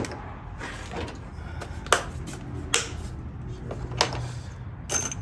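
A few sharp clicks and knocks, spaced about a second apart, over a low steady hum.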